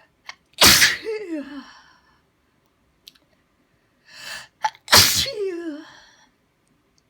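A person sneezing twice, about four seconds apart. Each sneeze is a sharp burst that trails off in a falling voiced tail, and a quick in-breath comes just before the second.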